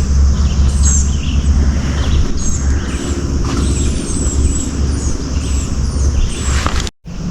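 Small birds chirping repeatedly over a steady low rumble; everything cuts out for an instant near the end.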